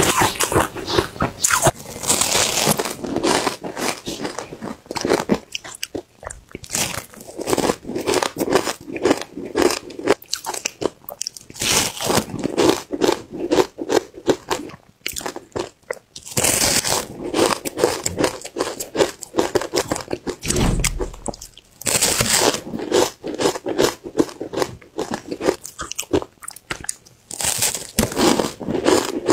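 Close-miked crunching and chewing of frozen matcha ice chunks: a series of loud crunchy bites every few seconds, with quieter chewing in between.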